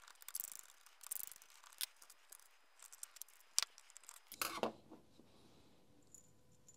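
Screwdriver backing self-tapping screws out of the plastic housing of a Makita DTM52 multitool: a run of small irregular clicks and scrapes, with one louder scrape about four and a half seconds in, after which it goes faint.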